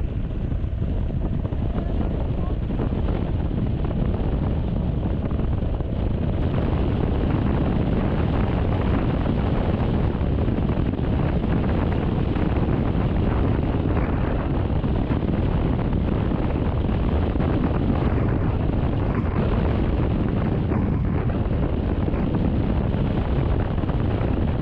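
Steady wind rush on the microphone of a moving Honda Forza 350 scooter, mixed with the scooter's single-cylinder engine and tyre noise at an even cruising speed.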